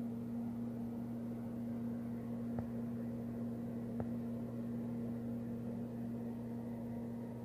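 A steady low hum over a faint even hiss, with two faint clicks about two and a half and four seconds in.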